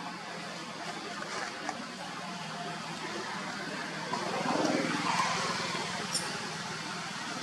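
A motor vehicle passing on a nearby road, its engine and tyre noise swelling about halfway through and fading again, over a steady low hum.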